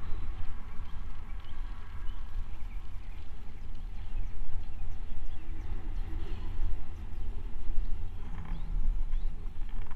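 Wind buffeting the microphone of a camera moving fast downhill, a heavy low rumble that rises and falls unevenly, with faint road noise beneath it.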